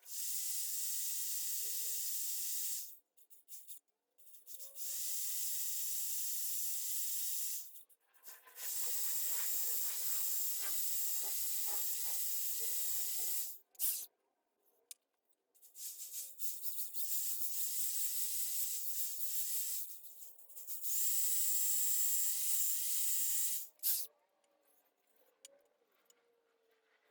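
Compressed-air blow gun hissing in about five long bursts, each lasting a few seconds with short gaps between. This is typical of blowing out a cleaned engine block and its drilled oil passages.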